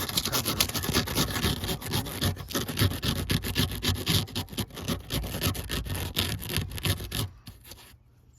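Dense, continuous scraping and rubbing noise made of rapid irregular strokes, which stops abruptly about seven seconds in.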